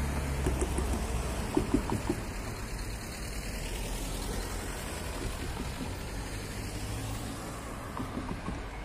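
Cars driving across a level crossing: engines and tyre noise as one car passes close early on and another approaches near the end, with a few sharp knocks about a second and a half in.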